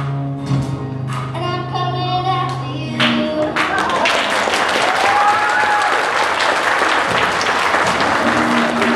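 Children's choir and backing track finish on a held note about three seconds in, then the audience breaks into steady applause with a whoop of cheering.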